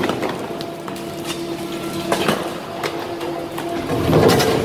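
DEMAREC hydraulic demolition shear on an excavator crushing a reinforced concrete slab: a steady machine hum with scattered cracks and crunches of breaking concrete, the loudest crunching near the end.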